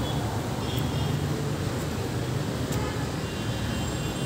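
Steady low rumble of road traffic: cars and other vehicles running and passing on a busy city street.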